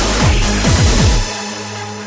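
Electronic dance music with a fast kick drum, about four beats a second, that drops out a little over a second in, leaving held low synth notes.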